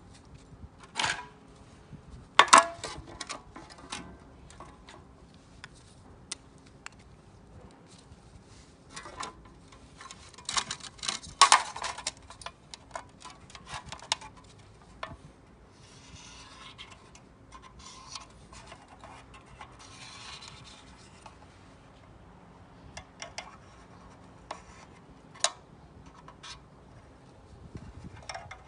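Irregular sharp knocks and clinks with rubbing and scraping in between, the knocks thickest about ten to twelve seconds in and a softer run of scraping near the middle: the sound of objects being handled and worked by hand.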